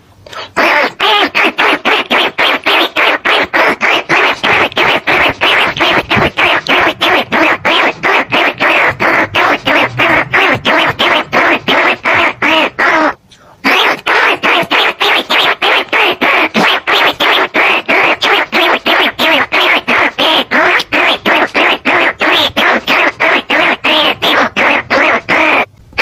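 Rapid rat squeaks repeating about four times a second, a decoy call used to lure bandicoot rats and field rats. The run of squeaks breaks off for a moment about halfway through and starts again.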